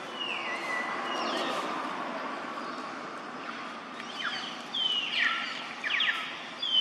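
Baby macaque giving high-pitched squealing calls that fall in pitch: one longer call near the start, then a run of short, louder squeals in the second half.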